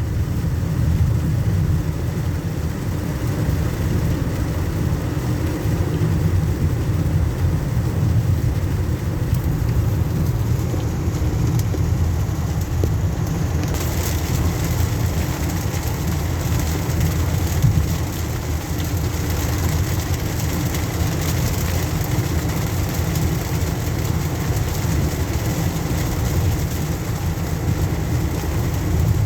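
Car driving on a wet road, heard from inside the cabin: a steady low rumble of tyres and engine with a hiss of rain and water, the hiss growing louder about halfway through.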